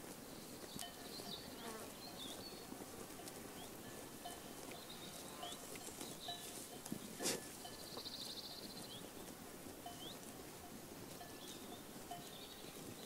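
Pasture ambience: birds chirping and trilling over a grazing flock of sheep, with one sharp short sound about seven seconds in.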